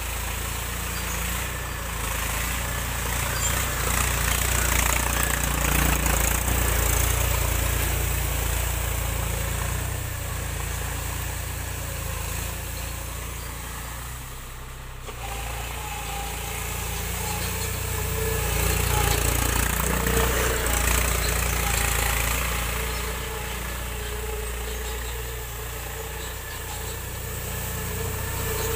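Mahindra 275 tractor's three-cylinder diesel engine running as the tractor drives over piled rice straw to thresh paddy. The engine grows louder and fainter in turns as the tractor circles the heap.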